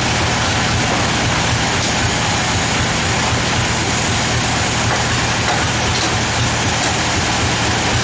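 Band sawmill machinery running steadily: a constant low hum under an even hiss. The saw is not cutting while the log is being positioned.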